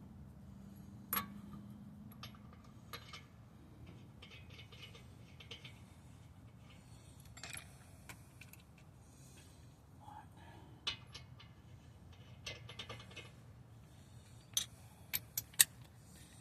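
Scattered light metallic clinks and clicks of hand tools and parts being handled during wheel mounting, with a few sharper clicks near the end.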